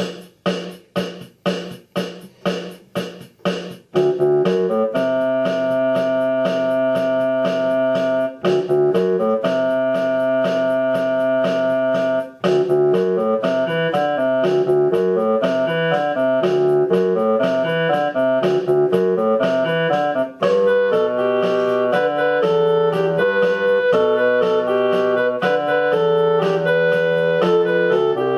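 Closing music on keyboard, piano-like. It opens with about eight short chords, two a second, then goes into a full melody over a bass line.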